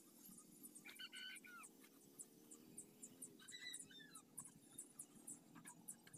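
Near silence: faint outdoor ambience with a rapid, high-pitched insect ticking about three times a second, and two brief chirping animal calls about a second and three and a half seconds in.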